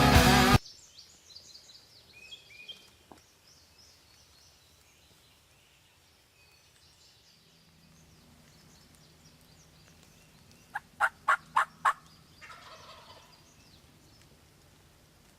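Wild turkey gobbler gobbling: one short rattling burst of about six quick notes, the loudest sound, about eleven seconds in. Faint songbird chirps come before it.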